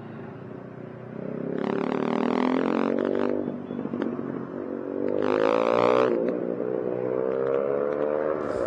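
Yamaha XSR 155's single-cylinder engine on its quiet stock exhaust, revving up under acceleration, dropping back at a gear change about three and a half seconds in, then pulling up again before easing off. Two rushes of wind noise sit over it, and music comes in at the very end.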